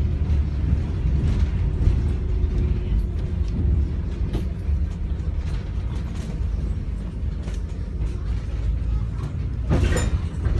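Interior noise of a moving double-decker bus: a steady low engine and road rumble with scattered rattles and creaks from the bodywork and windows. A short, louder sound with a ringing tone comes near the end.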